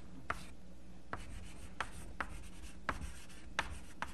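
Chalk writing on a blackboard: about seven irregular sharp taps, with light scratching between them.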